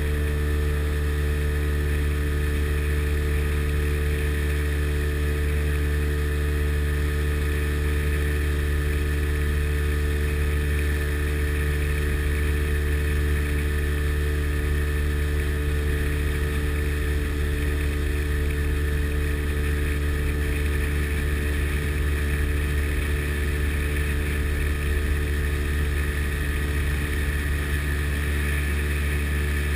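Sea Ray Sea Rayder jet boat's two-stroke engine running steadily under way, holding an even speed with no revving, heard from on board.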